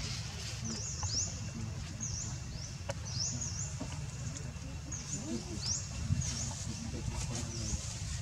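High chirping calls, a quick group of notes repeated about once every second and a bit, over a low steady rumble.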